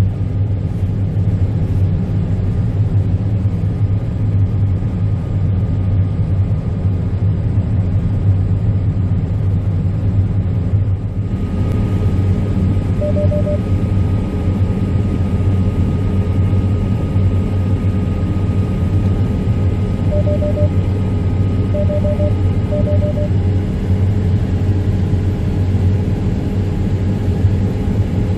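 Heavy harvest machinery running with a steady low engine rumble. About eleven seconds in the sound changes abruptly, and a few short beeps come later.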